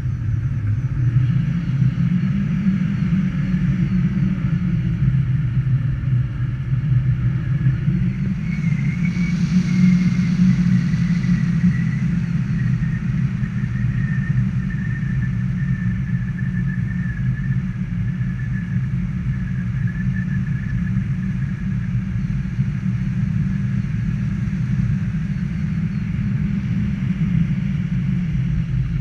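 A motor running steadily, a low rumble with a thin, wavering high whine over it.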